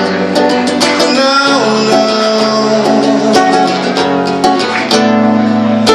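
Live acoustic music: a singer draws out a long sung 'não' over strummed and plucked acoustic guitar.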